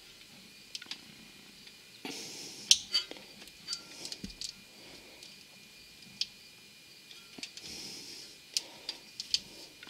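Scattered small clicks and light metal taps from hands working a replacement block heater into its bore in the engine block, with no steady rhythm. Two short stretches of soft rustling hiss come partway through and again near the end.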